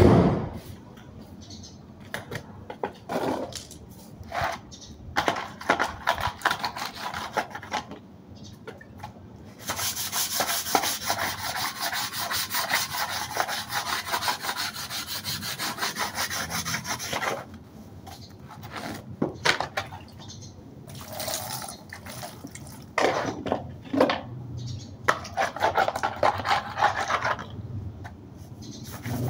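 Hand sanding with sandpaper: scattered rubbing strokes, then about seven seconds of fast continuous back-and-forth scraping, then more strokes near the end. A sharp knock right at the start.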